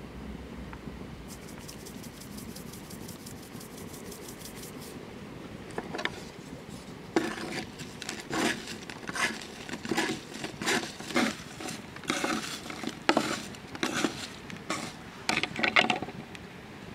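Fried potato fries being tossed and turned on a wooden board with a fork and a wooden utensil: from about six seconds in, a string of short clatters and scrapes, roughly two a second, over a low steady hiss.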